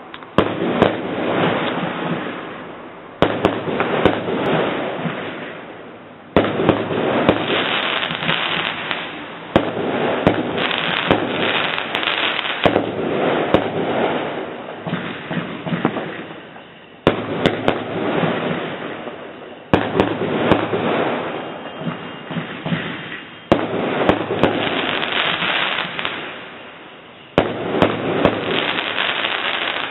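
Aerial fireworks bursting one after another, about nine loud bangs a few seconds apart, each trailing off over two or three seconds with sharp pops and crackles scattered through.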